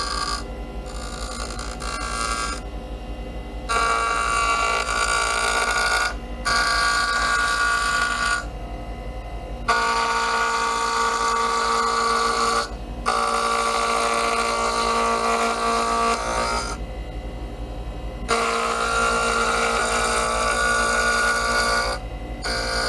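Lathe motor running at speed while a turning tool cuts a spinning pen blank in repeated passes of a few seconds each. The cutting noise drops back to the motor's hum in short gaps as the tool comes away from the blank.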